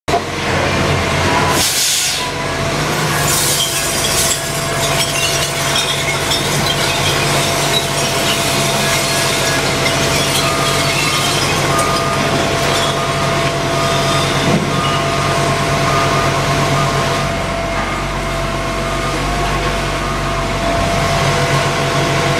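Recycling collection truck's engine running steadily, heard from inside the cab, with a short burst of hiss about two seconds in.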